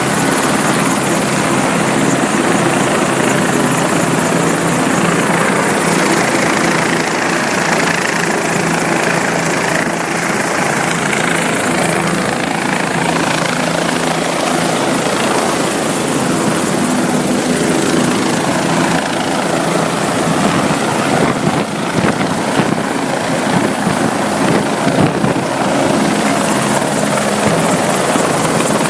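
Helicopter rotor and turbine running steadily and loudly.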